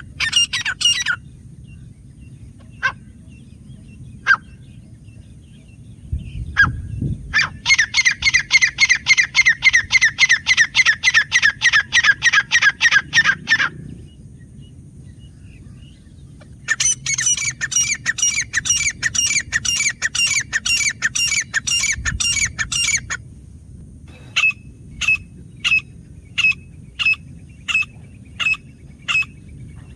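Grey francolin calling: two long runs of rapidly repeated, squawking notes at about four a second, with a few single notes between them. Near the end come spaced single notes, about two a second.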